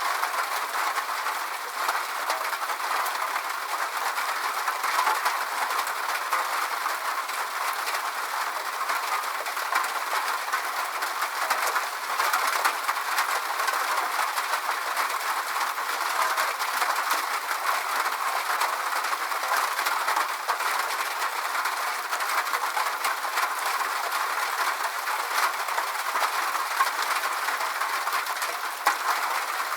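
Steady rain falling: an even hiss of rain with many small drop hits, unchanging throughout.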